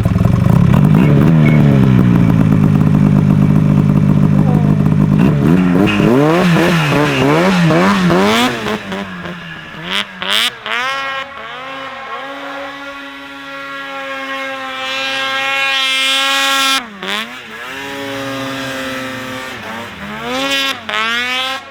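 Ski-Doo Rev snowmobile's two-stroke 800 H.O. engine being ridden hard, loud and close at first. Its pitch swings up and down with the throttle, then holds at high revs with a few brief drops when the throttle comes off.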